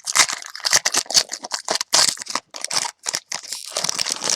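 Irregular rustling and crinkling as a pack of football trading cards and its wrapper are handled and slid through the hands.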